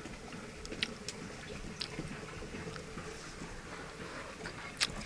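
Close-up eating by hand: fingers mixing rice and cauliflower curry on a metal plate, then biting into and chewing a cauliflower floret. A few sharp clicks come through, the loudest near the end.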